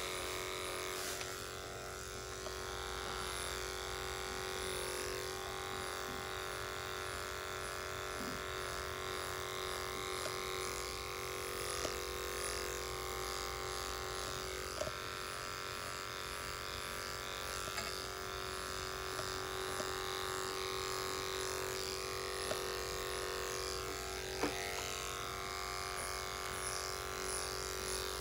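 Electric dog-grooming clippers running steadily with a constant buzz as the blade shaves through a dog's thick curly coat.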